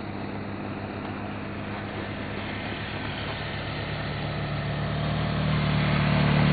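Vehicle engine running at a steady pitch, growing steadily louder over the second half.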